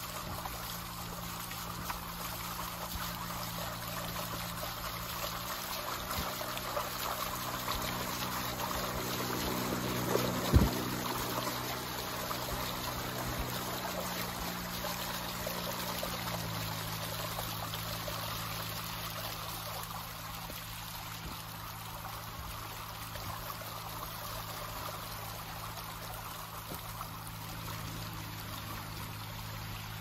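River water washing and trickling steadily past a slowly moving boat, with the low steady hum of the boat's motor underneath that shifts pitch about halfway through. A single sharp knock sounds about ten seconds in.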